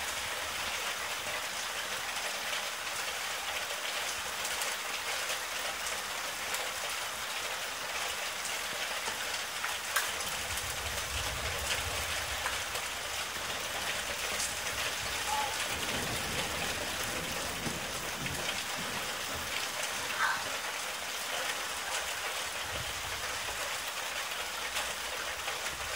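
Steady rain falling as an even hiss, with low rumbles that swell and fade several times.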